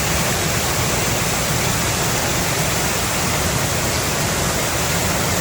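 B. Reynolds Falls, a waterfall heard close up from behind the falling water: a steady, really loud rush of water.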